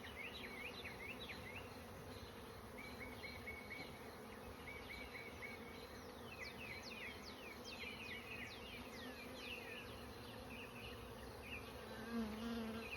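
Honeybees buzzing around an open hive: a steady, low hum. Through the middle, high, short falling chirps repeat in the background.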